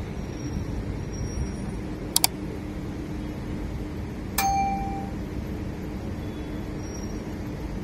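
Subscribe-button sound effects: a quick double mouse click, then about two seconds later a single bright bell ding that rings out briefly, over a steady background hum.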